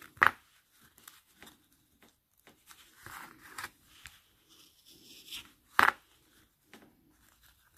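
A Stanley knife blade scraping and prising at the aged rubber seal on a motorcycle instrument glass, with light scratchy rasping and rubbing of the rubber against the glass. Two sharp clicks stand out, one just after the start and one about six seconds in.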